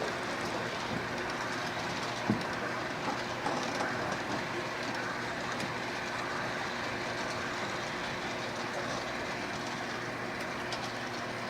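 Model train running on the layout track: a steady rolling noise with a few light clicks of wheels over the rail.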